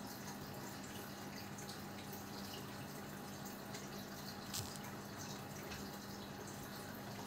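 Steady low background hiss with a constant low hum: room tone picked up by the recording microphone, with one faint click about four and a half seconds in.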